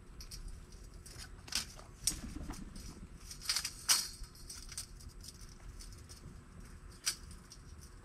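A coiled steel sawmill band blade being handled, giving scattered light metallic clinks and rattles with a few sharper ticks, the loudest about four seconds in.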